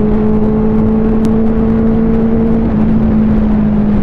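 Benelli 600i inline-four motorcycle engine droning steadily at cruising speed, its pitch edging slightly upward, over a steady rush of wind and road noise.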